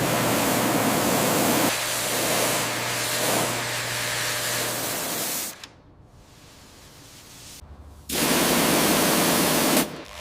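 A hissing spray jet runs for about five and a half seconds and breaks off. It starts again about eight seconds in and runs for about two seconds.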